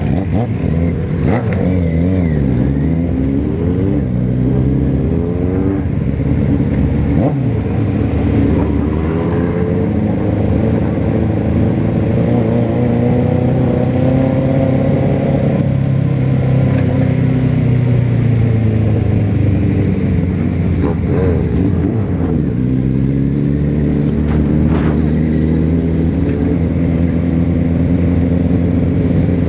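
Motorcycle engine heard from on board, pulling away and accelerating through the gears: its pitch climbs, drops back at each shift and climbs again.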